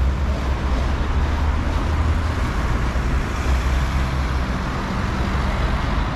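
City street traffic: cars driving past close by, with an old tram passing along the far side of the road. It is a steady low rumble with no sharp sounds.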